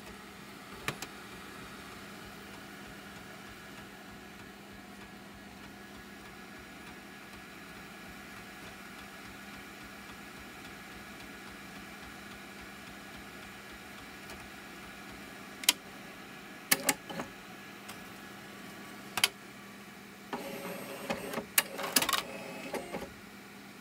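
Rimage 2000i CD/DVD duplicator running with a steady hum, then a few sharp clicks from its disc-handling arm and, near the end, a rattling clatter as a disc drops into the output bin.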